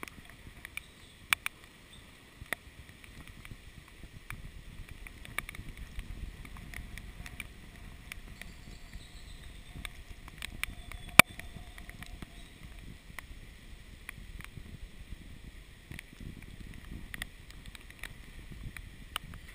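Wind buffeting the camera's microphone in the rain, a steady low rumble with scattered sharp ticks of raindrops striking the camera; one louder tick about eleven seconds in.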